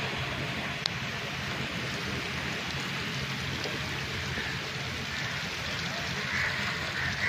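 Water spray from several pop-up rotor sprinklers falling on a wet lawn and pavement, making a steady, rain-like hiss, with one sharp click about a second in.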